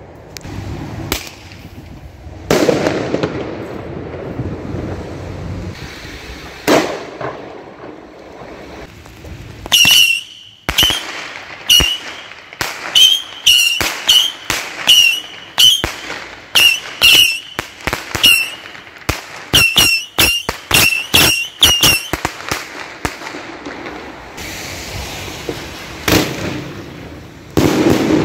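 Fireworks exploding overhead: scattered booms that echo, then a fast run of sharp bangs, about two or three a second, each followed by a short high tone, for about twelve seconds in the middle before the bangs thin out again.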